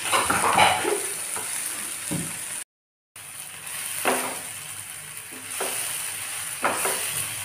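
Food frying in a pan with a steady sizzle, and a few short clinks and knocks of small steel bowls and a lid being handled. The sound drops out completely for about half a second a little under three seconds in.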